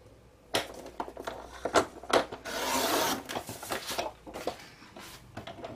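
Paper trimmer cutting a sheet of paper: clicks and rustling as the sheet and rail are set, then a short scraping swish as the blade slider runs along the rail, followed by a few more light clicks.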